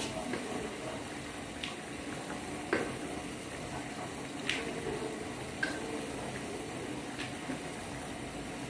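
Wooden rolling pin rolling dough out thin on a wooden board: a soft steady rolling noise with a few light clicks and knocks scattered through it.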